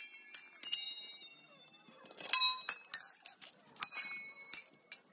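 Metal temple bells being struck and ringing, several at a time, in three clusters: about half a second in, around two seconds in, and around four seconds in.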